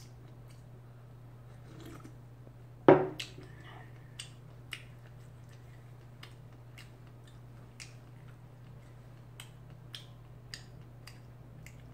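A ceramic mug set down on a wooden table with one loud knock about three seconds in, followed by scattered small clicks of eating: chewing and mouth noises while a sausage bread roll is pulled apart. A steady low hum runs underneath.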